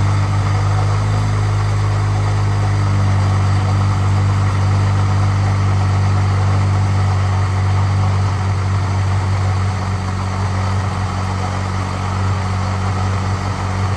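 Turbocharged Honda Civic engine idling steadily, with the rattle that the owner calls "kind of rattly" and is trying to locate.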